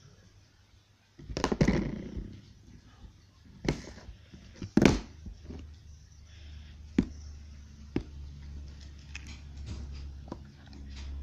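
Plastic snap-lock food container being handled: its lid and clip rattle, with a burst of scraping about a second in, then several sharp plastic clicks and knocks as the lid is pressed shut and clipped.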